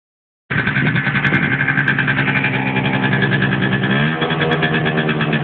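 Malaguti F12 scooter's Minarelli two-stroke engine running steadily through a Gianelli Next aftermarket exhaust, on an otherwise stock engine. The engine speed rises slightly about four seconds in.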